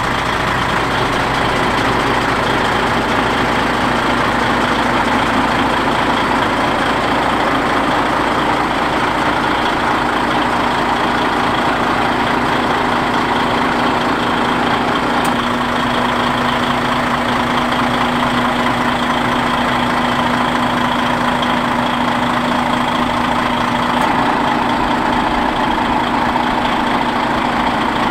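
DAF XF95.480 truck's six-cylinder diesel engine idling steadily.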